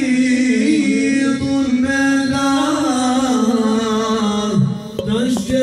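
Man singing an Islamic devotional song (ilahi) into a microphone, holding long notes with ornamented turns. The voice slides down and briefly drops away near the end.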